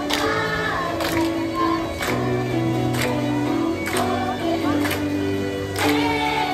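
Children's choir singing over amplified backing music with a steady beat of about one stroke a second.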